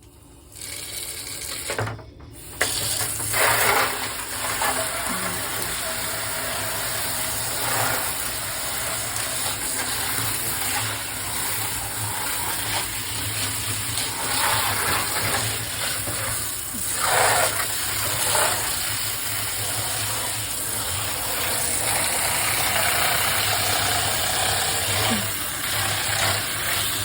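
Water running steadily as air-conditioner filters are rinsed. It starts suddenly about two seconds in, over a low steady hum.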